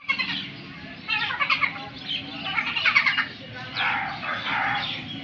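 Crows cawing: a run of repeated calls in four or so bursts, some overlapping, the loudest about three seconds in.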